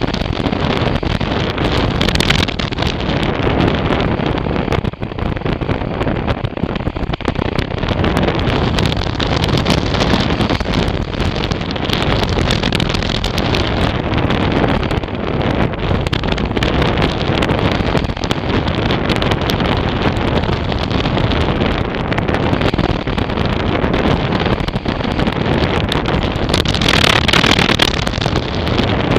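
Wind noise from airflow buffeting the microphone of a camera mounted on a hang glider in flight: a loud, steady rush, with a stronger, hissier gust near the end.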